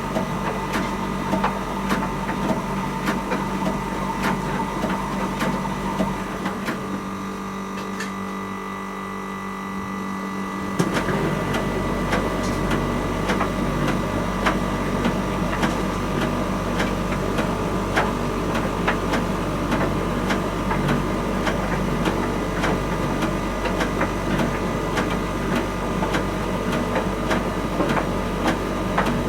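Miele T1 heat-pump tumble dryer running, its drum turning with frequent light knocks over a steady machine hum. The hum drops away about six seconds in and comes back louder about eleven seconds in.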